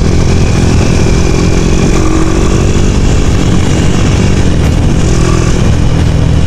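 Honda Tiger's single-cylinder four-stroke engine running through an aftermarket racing muffler while riding at a steady pace, its note rising a little about two seconds in.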